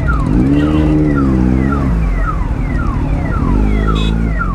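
Ambulance siren sounding a fast falling wail, about two falls a second, over heavy traffic rumble. The Kawasaki Z900's engine revs up and back down twice under it.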